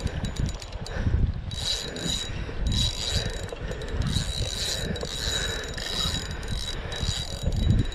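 Spinning fishing reel working under a hooked fish, its drag and gears ticking and whirring in repeated bursts about once a second, over a low rumble.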